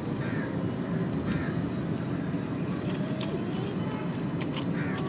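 Light clicks and knocks of plastic toy trucks being handled and turned over, over a steady low rumble.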